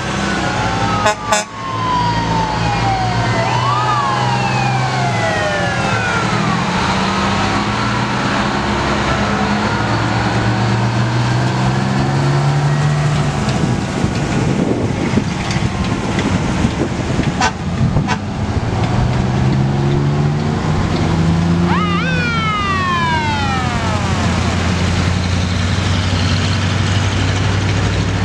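Old fire engines driving slowly past one after another, their engines running with pitch rising in steps as they pull along. Sirens sound over them, falling in pitch during the first few seconds, and one winds up sharply and falls away again about three-quarters of the way through.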